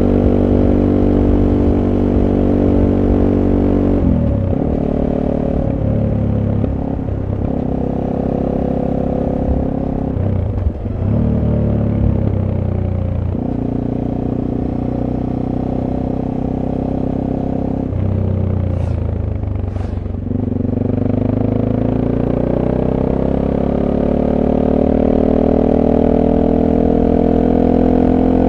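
SWM Super Dual T's single-cylinder engine, with its stock exhaust, heard on board while riding. It runs at high revs, then drops in pitch about four seconds in as the bike slows. It rises and falls through the middle, and in the last eight seconds it climbs steadily in pitch as the bike accelerates.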